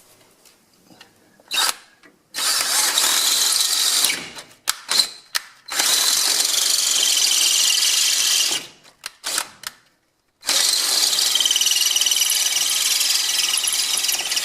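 Power drill with a 15/32-inch bit boring out the rear bolt hole in a front strut's mounting, run in three long pulls of the trigger with short blips between. The bit squeals as it cuts the steel, with a wavering whine in the last run.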